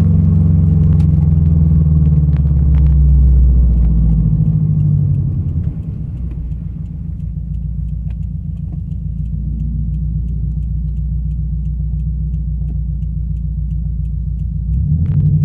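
Cabin sound of a Subaru BRZ's flat-four running through a catless header and straight-piped exhaust: a loud low engine note that falls in pitch and level about five and a half seconds in, then settles into a steady low drone. A light regular ticking, about two a second, runs through the second half.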